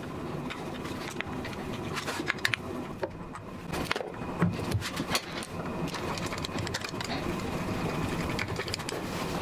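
Scattered metal clicks and clinks of a screwdriver and the stepper motor's housing as a Nema 34 stepper is unscrewed and fitted to a CNC mill's ballscrew coupler, over a steady mechanical hum.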